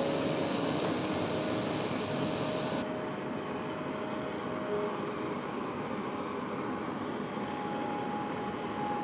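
Primus gas canister stove burning under a pot of water with a steady rushing hiss, which turns duller about three seconds in.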